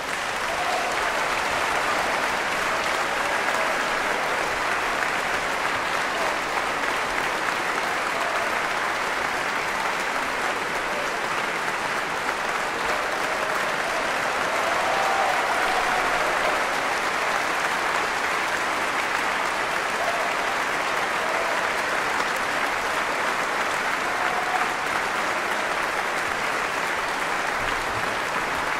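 Concert hall audience applauding steadily, with a few faint voices calling out.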